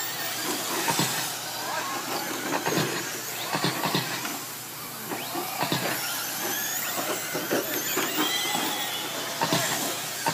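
Several radio-controlled short-course trucks racing on a dirt oval: high-pitched motor whine rising and falling with the throttle over a steady hiss, with scattered clicks and knocks.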